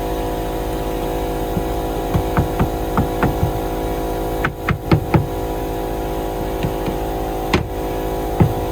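Steady hum of an engine running, with a quick run of light knocks about two seconds in, a cluster of louder knocks near the middle, and two more single knocks near the end.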